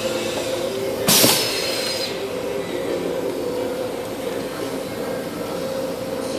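Automatic screen-printing press running with a steady machine hum that carries a held tone, and a short, loud hiss of air from its pneumatics about a second in.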